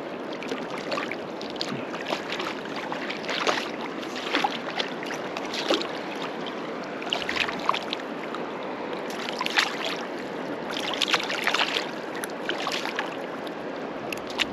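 Shallow river flowing steadily over rocks, with short splashes scattered throughout as a hooked whitefish thrashes at the surface and is unhooked by hand.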